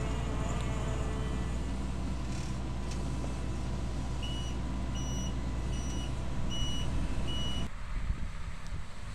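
Claas Lexion 450 combine harvester running steadily, with an electronic warning beeper sounding five short, evenly spaced beeps in its second half. The machine's sound cuts off abruptly near the end, leaving a fainter rumble and wind noise.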